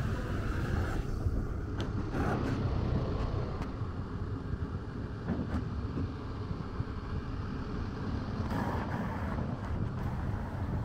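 A car driving past on a town street, over a steady low rumble of outdoor background noise.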